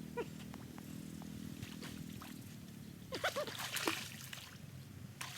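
An animal's short, high yelping calls, one just after the start and several more around three to four seconds in, with water splashing.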